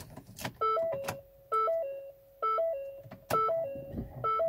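2015 Ford Escape's instrument-cluster warning chime, a short multi-note chime repeating about once a second, five times, as the ignition is switched on and the warning lamps light up. A faint click or two is heard between the chimes.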